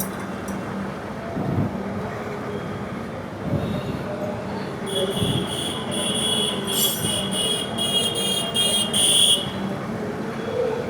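Street traffic noise with a low engine hum. Midway through comes a loud, high-pitched pulsing squeal that lasts about four seconds.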